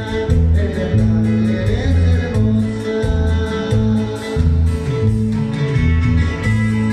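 Loud music with a bass line, guitar and a steady beat.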